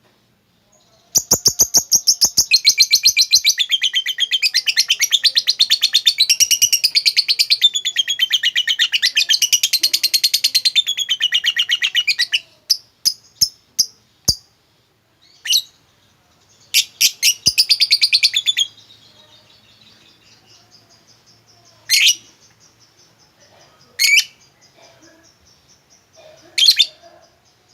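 Lovebird ngekek: a long, rapid chattering trill of fast-repeated shrill notes lasting about eleven seconds. It is followed by a few single chirps, a second short chattering burst, and three sharp separate calls near the end.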